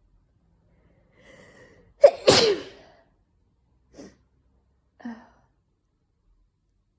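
A person sneezing once: a faint, breathy intake builds up, then a single loud "ah-choo" about two seconds in, followed by two short breath sounds.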